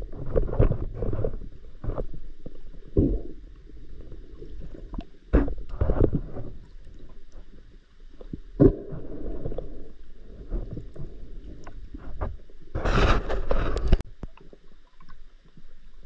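Muffled underwater sound picked up through a camera housing as a spearfisher swims: irregular swishes and knocks of water movement and handling, with a louder rush of noise near the end.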